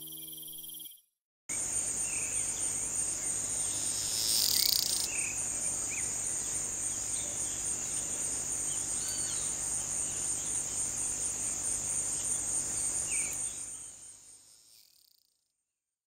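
Cicada singing: a continuous high-pitched buzz that starts about a second and a half in, swells briefly about three seconds later, and fades out near the end, with a few faint bird chirps behind it.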